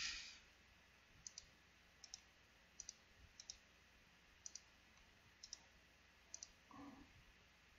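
Faint computer mouse clicks coming in quick pairs, about seven pairs spread over a few seconds, as entries are right-clicked and deleted from a list.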